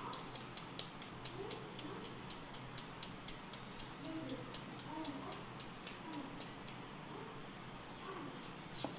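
A kitchen knife chopping an onion held in the hand: quick, regular crisp cuts, about five a second, the blade snicking through the onion as the pieces drop away.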